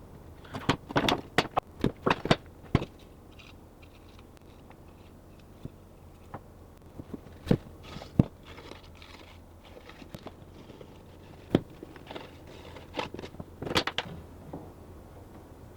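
Scattered clicks and light knocks of wooden cabinet-door rails, stiles and panels being handled and fitted together during a glue-up. There is a quick run of them in the first few seconds, a few single knocks through the middle, and another cluster near the end.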